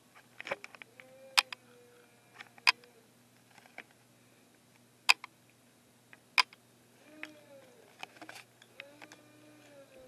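Handling noise from a handheld camcorder pressed and moved against clothing: sharp clicks and taps, four of them loudest and a second or more apart, among smaller ticks and rustling.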